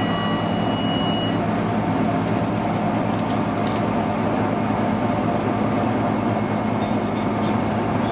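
Inside a Scania K310UB city bus under way: the rear-mounted five-cylinder diesel and driveline running steadily. At the start a single high electronic stop-request chime sounds for about a second and a half when the stop button is pressed.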